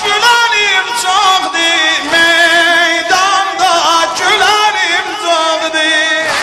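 Male voice singing long, wavering melismatic phrases of a noha, a Shia mourning lament, with the pitch bending and trilling on held notes.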